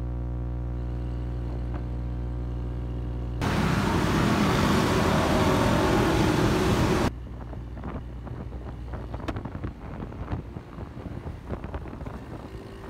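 A motorcycle engine idling steadily. About three seconds in it cuts to a loud rush of wind on the microphone while riding for about four seconds. Then comes quieter street traffic noise with scattered clicks and knocks.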